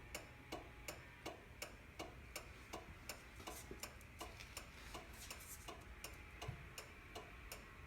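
Turn-signal flasher relay clicking faintly and evenly, about three clicks a second, as the turn signals flash on and off.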